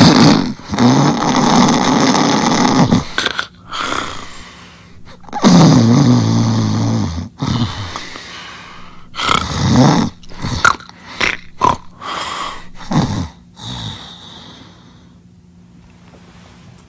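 Loud, rough snoring: two long snores of two to three seconds each, then a run of shorter snorts and breaths that thin out toward the end.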